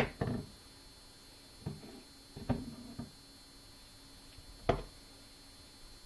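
Steel folding pocket knife being handled: about half a dozen sharp clicks and knocks at uneven intervals, the loudest at the start and another near the end.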